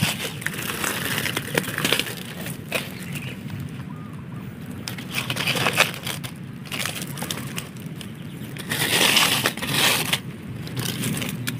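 Dry fallen leaves crunching and crackling as they are disturbed, in irregular bursts with a louder stretch near the end.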